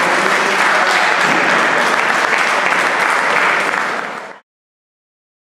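Audience applauding, fading out quickly about four seconds in to complete silence.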